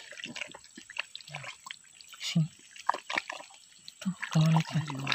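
Muddy ditch water at an eel hole dripping and splashing in small, irregular wet clicks and ticks.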